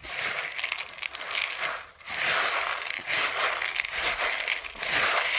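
Dry soil and plant debris being scraped and crunched, in repeated crackling strokes of about a second each.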